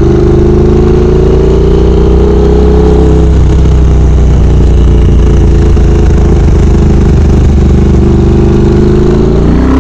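2022 Triumph Speed Twin 1200's parallel-twin engine running through loud, barely baffled Cone Engineering shorty mufflers on the move, a raspy note close to straight pipes. The engine note climbs gently over the first few seconds, holds steady, then shifts pitch near the end.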